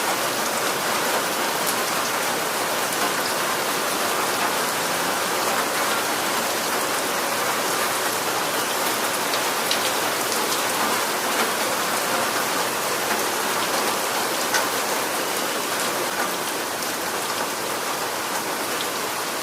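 Steady rain with a dense hiss and scattered single drops ticking distinctly through it.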